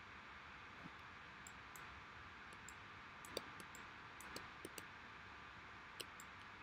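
Faint, irregular clicking of computer keys and a mouse, about a dozen clicks, over a steady low hiss.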